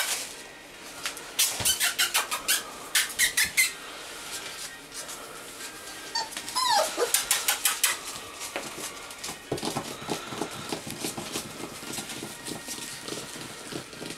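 Young presa canario puppies' claws clicking and scrabbling on a hard floor, with one puppy giving a short whimper that falls in pitch about six seconds in.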